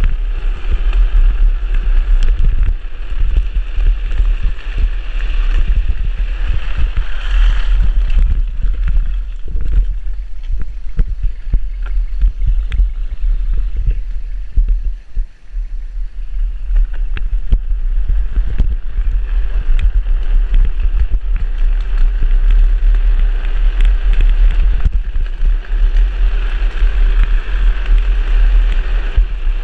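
Heavy wind buffeting on the camera microphone and the rushing scrape of a drift trike's wheels on asphalt during a fast downhill run. It eases and thins for several seconds midway, dipping briefly about halfway through, then builds back to full.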